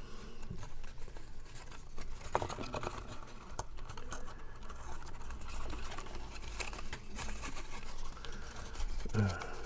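Cardstock pieces being handled and fitted together: light paper rustling and scraping with scattered small taps.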